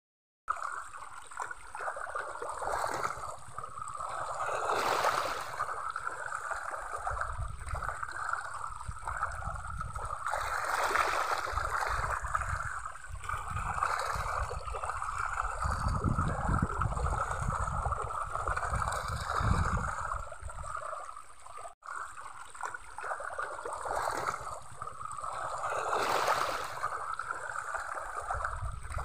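Water splashing and churning as a crowd of fish thrash at the surface while feeding. The splashing is steady, with a low rumble for a few seconds in the middle.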